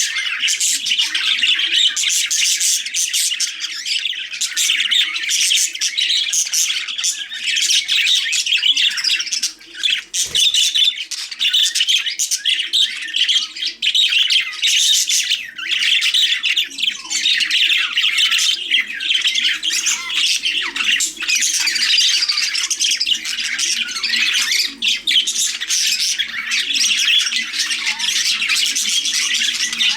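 Budgerigars chattering without pause: a dense stream of quick chirps, warbles and squawks. A single short knock about ten seconds in.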